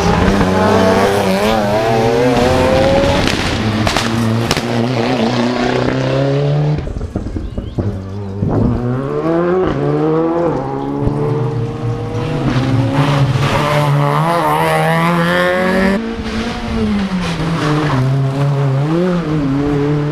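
Rally car engines revving hard and pulling through the gears, their pitch climbing and dropping at each shift as cars go by one after another.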